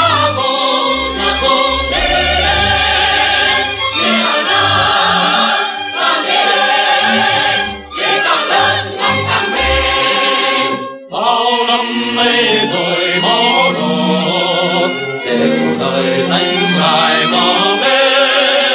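Background music: a choir singing a Vietnamese song, with two brief breaks about eight and eleven seconds in.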